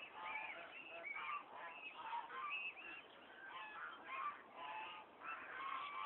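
A flock of domestic waterfowl calling: many short, nasal, overlapping calls follow one another several times a second without a break.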